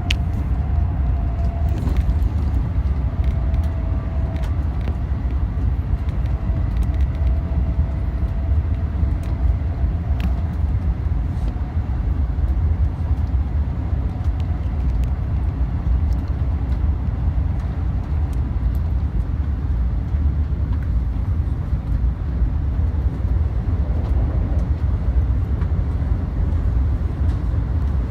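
Cabin noise of a Joetsu Shinkansen car running: a steady low rumble, with a faint whine that slowly falls in pitch during the first ten seconds.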